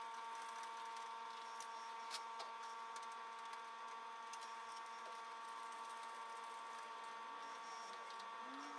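Quiet room tone: a faint steady hum with a couple of light clicks.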